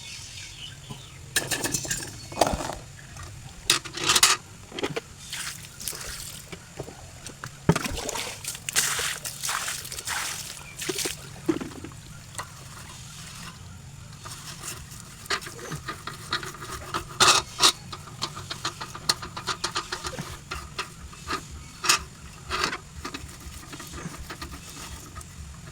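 Table fan parts being cleaned by hand: irregular scraping and scrubbing with splashes of water and many sharp knocks of plastic parts being handled.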